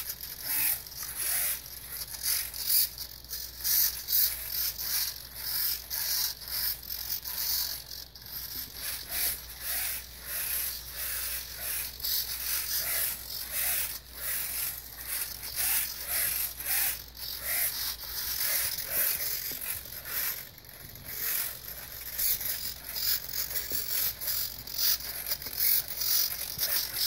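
Small RC servos whirring in short, irregular bursts, mixed with hand rubbing and handling of a foam glider airframe. The glider is tilted and rocked by hand while a gyro-stabilizing receiver drives its control surfaces to correct. There are many quick, scratchy strokes with no steady rhythm.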